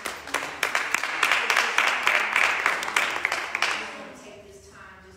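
Audience clapping and applauding, dying away about four seconds in.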